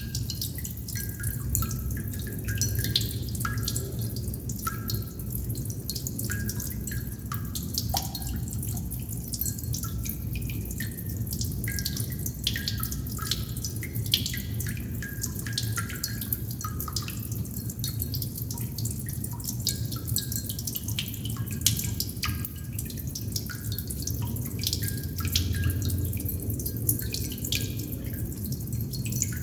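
Water droplets dripping at an irregular pace, each drop a short click or pitched plink, over a steady low hum.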